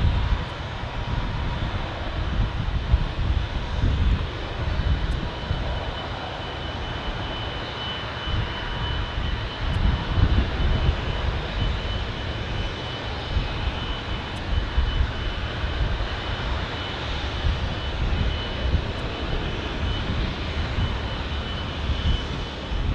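Jet airliner's engines running at takeoff power, a deep rumble with a steady high whine over it.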